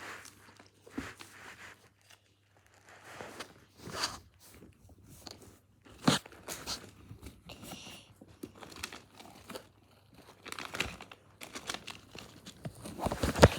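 Irregular clicks, taps and light rustles of small soft plastic squishy toys being handled and set down one after another.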